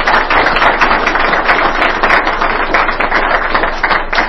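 Audience applauding: many hands clapping together, a dense even patter that begins to thin out near the end.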